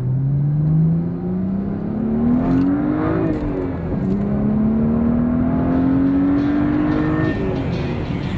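BMW F30 335i's turbocharged inline-six through a Corsa stainless-steel cat-back exhaust, heard from inside the cabin on a roll-on of throttle. The engine note climbs steadily, drops at an upshift partway through, then climbs again and falls away near the end.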